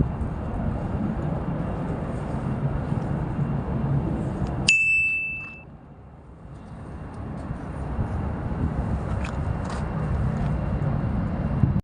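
A single sharp, bell-like ding that rings on one high tone for about a second, a little under halfway through, over a steady low rumble.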